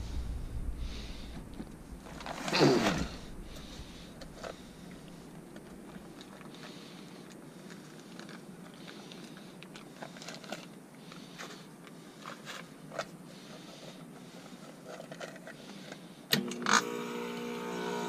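Faint scrapes and knocks of handling, with one louder falling swish about two and a half seconds in. Near the end, the ClimateMaster geothermal heat pump starts on stage one with a sharp click and a sudden steady hum.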